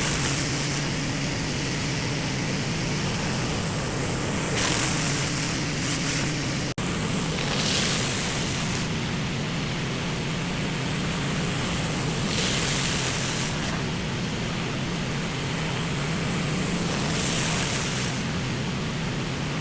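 Pressure washer running steadily, its engine humming under the hiss of the high-pressure water spray on the concrete driveway; the spray hiss swells louder every few seconds.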